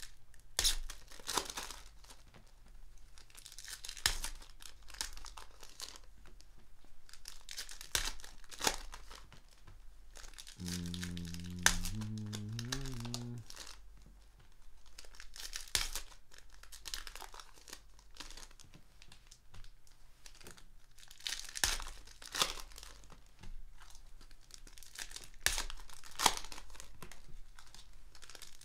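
Foil wrappers of Panini Ascension basketball card packs being torn open and crinkled by hand, in a string of sharp crackling tears and rustles.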